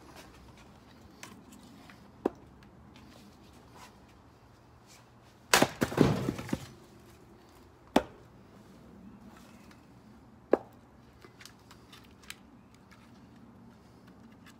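Split poplar firewood knocking and clattering as pieces are handled around a chopping block: a few sharp wooden knocks, and a longer clatter about six seconds in, the loudest.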